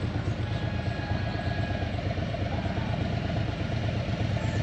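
Several Harley-Davidson V-twin touring motorcycles, one of them a three-wheeled trike, idling together, a steady low engine sound.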